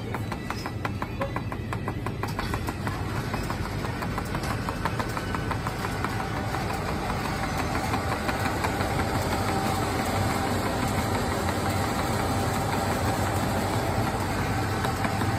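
Automatic hot-drink dispensing machine running as it fills a paper cup: a steady mechanical hum with rapid ticking for the first few seconds, and a steady whine joining in about six seconds in.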